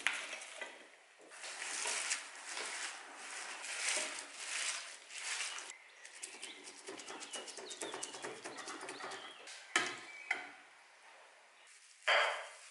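Hands mixing raw meat with sliced onions and garlic in an enamel basin: wet rustling and squishing, then a quick run of small squelches. The onions are tipped in at the start, there is a knock about ten seconds in, and a clunk near the end as a plate is set down on top.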